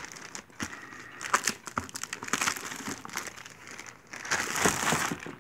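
Clear plastic wrap crinkling and crackling as it is worked off a box. The crackles come irregularly, with louder stretches about a second in and again past four seconds.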